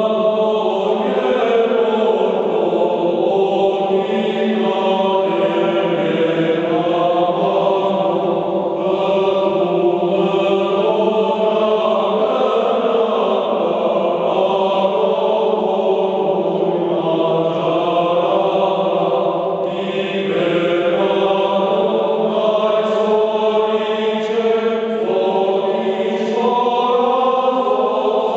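All-male choir singing Armenian Christmas hymns unaccompanied, in slow, sustained chords of many voices.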